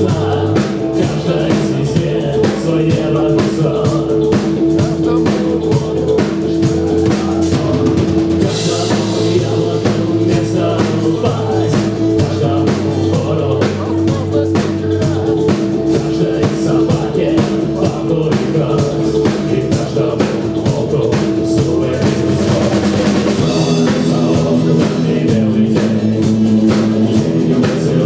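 Rock band playing, with a drum kit keeping a steady beat under sustained guitar and bass lines; cymbal crashes wash over it about a third of the way in and again near the end.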